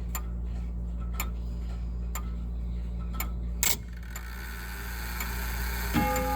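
Five-tube, two-weight tubular chime grandfather clock ticking about once a second. There is a brief noisy burst a little past halfway, and just before the end its tubular chimes begin to sound.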